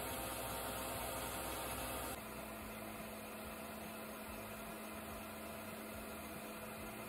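Small metal lathe running, turning a brass part. About two seconds in, the sound steps down abruptly to a quieter, steadier hum with a constant low tone as the lathe turns on with a drill in the tailstock chuck.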